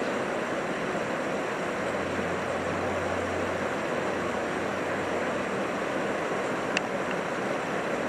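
Steady rushing outdoor background noise, with a low hum for a few seconds in the middle and a single short sharp click near the end.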